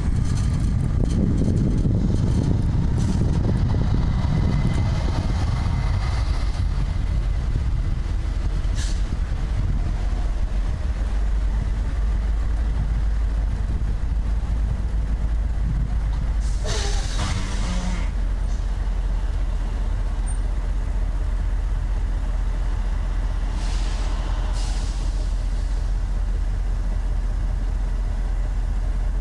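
A vehicle driving, with a steady low rumble of engine and road noise. A short burst of hiss comes about 17 seconds in and a fainter one about 24 seconds in.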